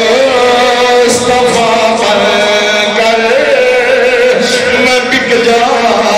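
A man's voice chanting a religious recitation in a melodic style, long held notes with slow ornamented glides, amplified through a microphone.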